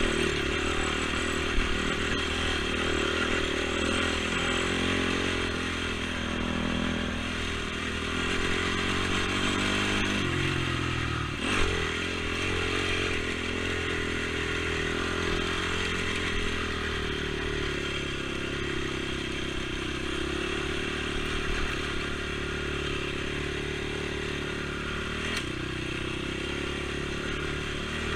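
Honda TRX450 ATV's single-cylinder four-stroke engine running while riding, its pitch rising and falling with the throttle, with rattles of the machine over the trail and a sharp knock about eleven seconds in.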